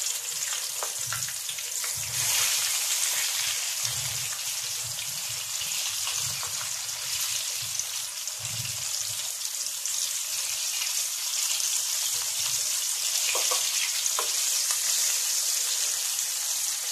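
Flour-and-egg-coated chicken pieces frying in hot cooking oil in a pan, a steady sizzle, as more pieces are laid into the oil. A few light knocks come near the end.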